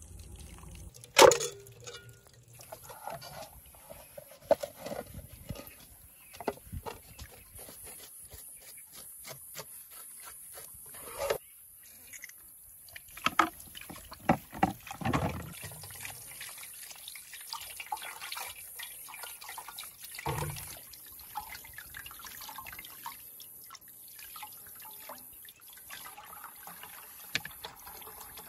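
Water splashing and dripping, mixed with many small knocks and clicks of handling, with one sharp knock about a second in.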